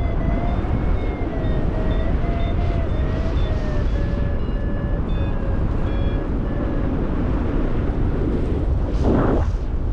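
Wind rushing over the microphone of a flying paraglider pilot, with a variometer beeping in short, even pulses. The beeps slowly fall in pitch and stop a few seconds before the end. A louder gust of wind near the end.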